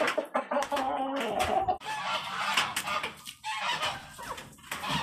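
Geese honking, several calls one after another, with some scattered clicking noises among them.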